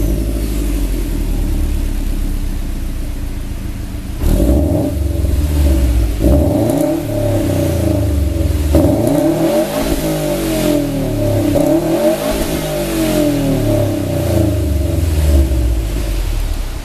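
Subaru Impreza WRX STI's turbocharged flat-four, heard through an HKS Super Turbo Muffler exhaust. It idles steadily for about four seconds and is then revved again and again, the pitch climbing and falling with each blip.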